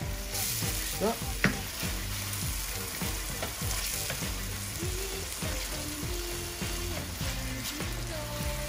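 Curry paste and tomato sauce sizzling in a stainless steel pan while a spatula stirs and scrapes across the pan bottom in quick repeated strokes.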